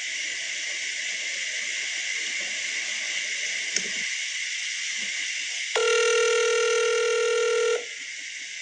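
Steady line hiss from a played-back phone recording, then about six seconds in a single steady telephone tone lasting about two seconds that cuts off suddenly.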